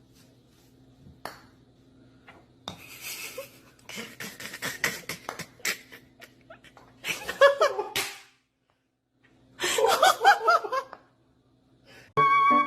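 Laughter in two short bouts, with clicks and rustling before them.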